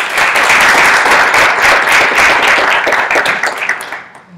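Audience applauding, a loud, dense patter of many hands clapping that fades out near the end.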